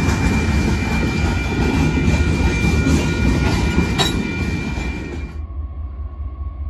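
Freight train of open-top gondola cars rolling past, with wheels clattering on the rails, a thin steady high tone and one sharp knock about four seconds in. The sound cuts off suddenly near the end to a much quieter low rumble with a faint hum.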